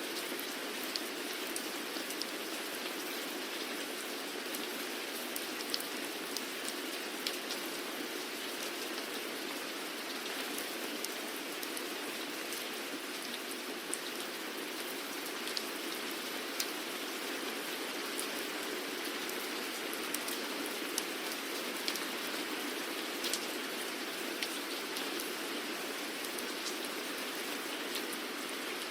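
Steady rain falling, a constant hiss with many separate drops ticking on a surface scattered throughout.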